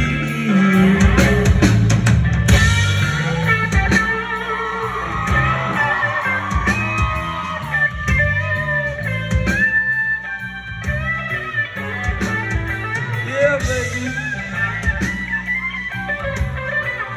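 Live band playing an instrumental stretch of a song: electric guitar lead with bending notes over bass guitar and drums, heard loud from within the crowd.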